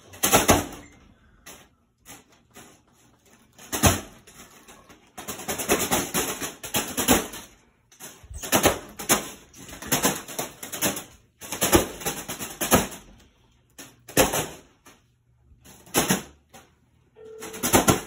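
A foil balloon caught in a spinning ceiling fan, its blades slapping and dragging the foil: loud crinkling whacks that come in irregular runs of rapid flapping, with single sharp cracks in between. The balloon takes the beating without popping.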